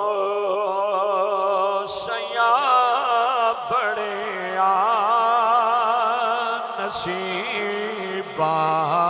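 A man's voice chanting durood-o-salam (blessings on the Prophet) in a long, melodic, ornamented line with vibrato, over a steady low drone.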